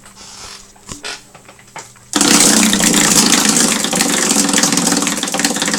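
Prize wheel spinning: after some quiet handling clicks, a sudden loud run of very rapid ticks starts about two seconds in and keeps going.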